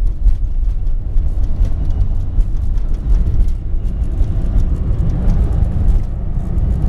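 Road noise inside a moving taxi's cabin: a steady low rumble of engine and tyres, with many small clicks and rattles.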